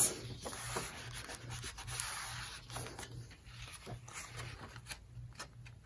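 Fingers rubbing and pressing along the paper at a hand-bound journal's spine, with sheets of paper rustling as pages are turned.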